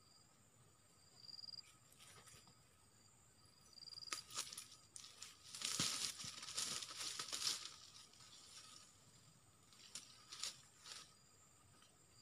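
Crackling, rustling noise of something moving through dry leaves and undergrowth, in a dense stretch from about four to eight seconds in and a few short rustles near the end. Under it, a steady insect drone with a short high chirp repeating every couple of seconds at the start.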